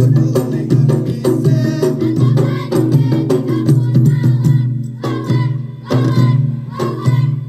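Ratoeh Jaroe music from Aceh: a fast, even rhythm of sharp claps and body slaps from the seated dancers and rapa'i frame drum beats, under voices singing a chant.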